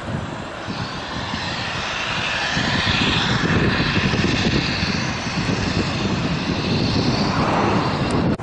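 Jet engines of a four-engine airliner taxiing: a steady high whine over a rumble, which grows louder about two and a half seconds in.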